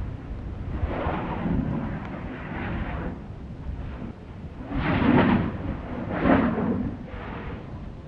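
Stromboli volcano's crater erupting: a run of rushing bursts of noise, the loudest about five and six seconds in, over a steady low rumble.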